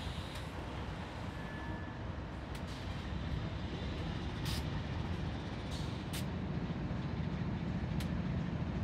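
BNSF diesel freight locomotives moving slowly past, a steady low engine rumble that grows louder through the second half, with a few sharp clicks.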